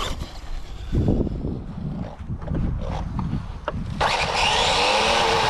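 Uneven low rumbling, then about four seconds in the Hobbywing Max6-powered Traxxas Maxx Slash RC truck suddenly starts running hard. Its brushless motor gives a loud steady whine that glides in pitch over a wash of noise.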